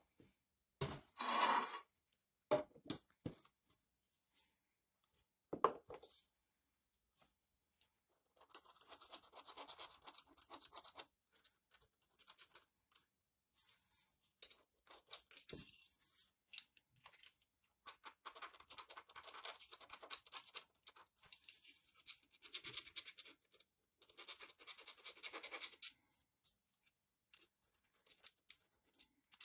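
Small parts of a vintage Johnson 3hp outboard's carburetor being scrubbed clean, in stretches of scratchy scrubbing lasting several seconds each, after a few sharp clicks and knocks of parts being handled.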